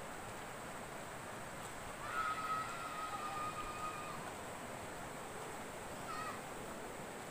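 Steady rural outdoor background hiss, with an animal's long call about two seconds in that lasts about two seconds and falls slightly in pitch, and a short falling call near the end.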